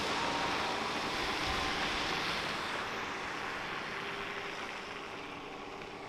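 Articulated city bus pulling away along a snowy road, its engine and tyre noise fading steadily as it drives off.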